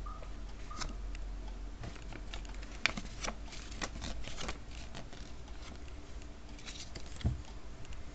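A folded paper instruction leaflet being handled and unfolded: light rustles and small ticks of paper and fingertips, the sharpest about three seconds in, and a soft thump about seven seconds in, over a steady low hum.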